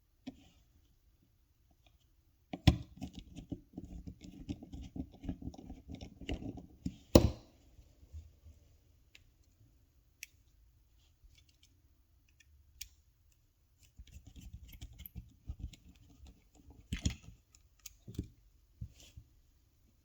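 Small clicks, scraping and rattling of a plastic key fob shell and its parts being handled and fitted together. The noise comes in two spells with a quiet gap between them, and the first ends in a sharp click about seven seconds in.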